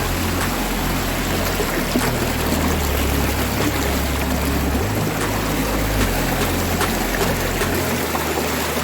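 Waterfall: a steady, even rush of falling water, with low bass notes of background music changing underneath.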